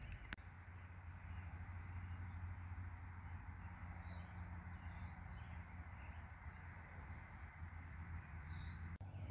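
Faint rural outdoor background: a steady low hum under an even hiss, with a few short, high bird chirps around the middle and again near the end.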